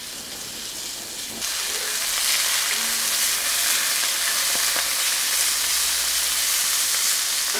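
Thin strips of gyros-seasoned meat sizzling in hot oil in a frying pan. The sizzle gets much louder about a second and a half in and then holds steady.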